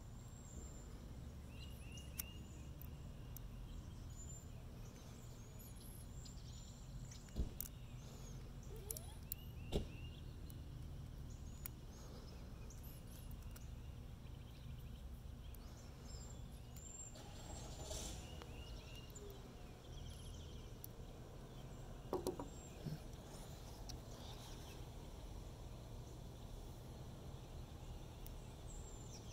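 Outdoor background of low steady rumble with scattered short bird chirps. A few sharp clicks of plastic and metal parts being handled stand out, two loud ones about seven and ten seconds in and a short clatter a little past twenty-two seconds.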